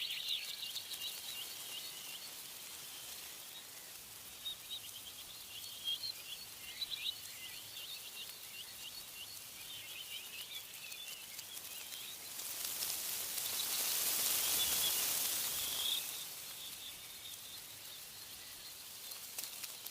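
Small birds chirping and trilling in quick, high-pitched runs. A gust of wind through tree leaves rises and falls over a few seconds about two-thirds of the way through, and is the loudest sound.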